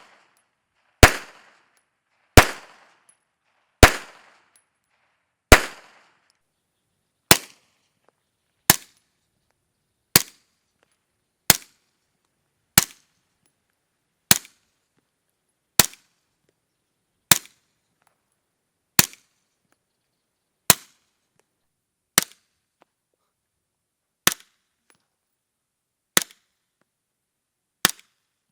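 A slow string of suppressed pistol shots through a Rugged Suppressors Obsidian 45 suppressor, about one every second and a half, eighteen in all. The first five are louder with a longer ringing tail; the rest are sharper and quieter.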